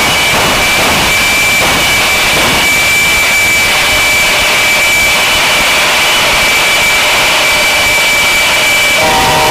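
Jet truck's jet engine running loud and steady, a high whine over a dense rush. Near the end a second sound of several steady tones held together comes in over it.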